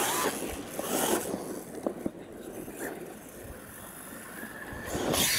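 Radio-controlled monster truck running on a dirt track: motor whine and tyres churning loose dirt, with a sharp knock about two seconds in as it lands or strikes a ramp, and the motor note rising near the end.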